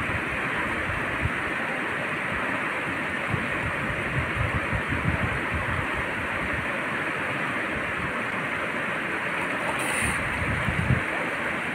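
Steady rushing of river water, with a brief splash about ten seconds in as a swimmer comes up out of the water.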